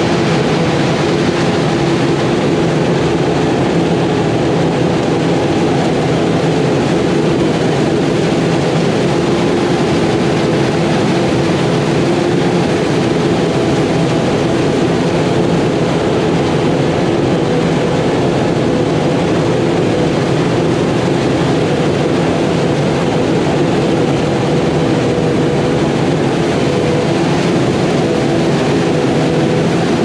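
Claas Jaguar forage harvester chopping corn silage with a JCB Fastrac tractor running alongside: a constant machine hum with several steady tones and no change in pace.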